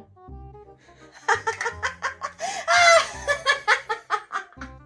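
A person laughing: a quick run of short bursts that starts about a second in and is loudest around the middle.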